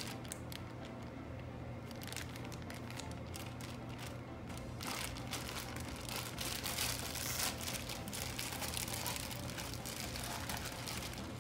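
Plastic balloon packaging bag crinkling as it is handled and opened and the latex balloons are pulled out. The rustling is a dense, irregular crackle that gets busier about halfway through.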